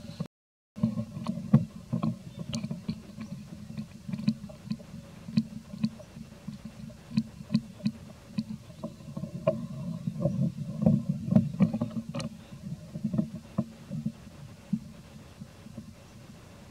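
Outdoor ambience: a low rumble with many irregular sharp clicks and crackles. The sound drops out briefly just after the start.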